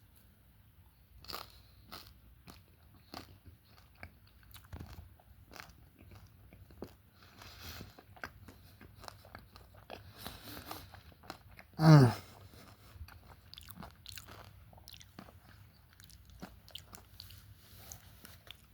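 A person eating a taquito meal close to the microphone: scattered crunching bites and chewing. About twelve seconds in there is one short, louder voiced sound with falling pitch.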